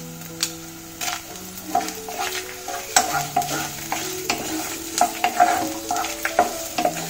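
Wooden spatula scraping and knocking against a nonstick pot, stirring sliced shallots, green chillies and broken dried red chillies as they fry in coconut oil, with a light sizzle underneath. The strokes come irregularly, one or two a second, and grow busier in the second half.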